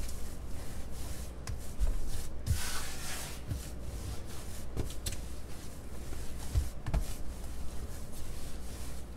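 Hands kneading soft flour-tortilla dough on a countertop: the dough rubbing and pressing against the surface with soft, irregular thuds, and a louder scraping rub about two and a half seconds in.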